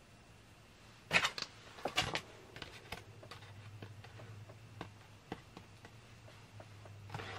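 Rustling and crinkling of a toy pack's wrapper being handled, in two short bursts about one and two seconds in, followed by faint scattered clicks and taps.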